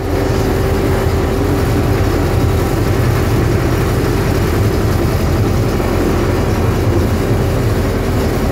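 Engine of a rail vehicle running steadily as it travels along the track, heard from inside its cab: an even drone with a constant hum and a low rumble.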